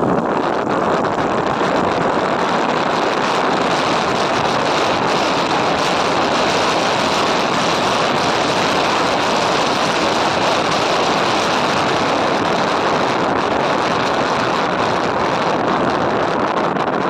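Motorcycle running at steady riding speed, mostly covered by an even rush of wind on the microphone.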